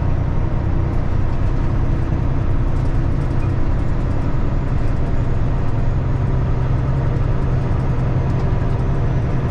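Peterbilt 579 semi truck's diesel engine running steadily in eighth gear, heard from inside the cab as a continuous low drone mixed with road noise.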